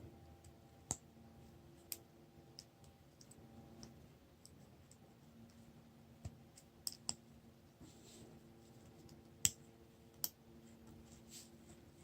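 Metal watch bracelet clasp's safety catch clicking faintly at irregular intervals as it is wiggled with the shell levered up, the clicks showing play in the catch. One click about three quarters of the way through is louder than the rest.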